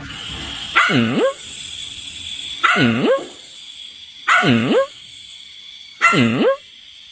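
A dog barking four times at an even pace, each bark drawn out to about half a second and dipping then rising in pitch.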